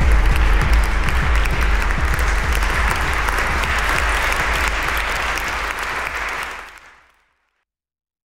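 Audience clapping, a dense patter of many hands over a low sustained tone. Both fade out about seven seconds in.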